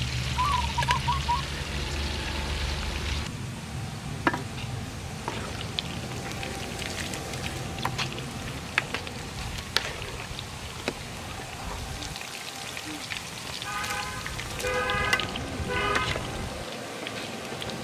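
Pork rib pieces deep-frying in hot oil in a metal wok: steady bubbling and crackling, with many sharp pops and ladle clinks. A short chirp about half a second in and a brief pitched call near the end come from the background.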